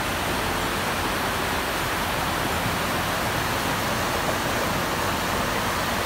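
Steady rushing of fast water from a swollen, muddy mountain river in flood, with a waterfall across the canyon.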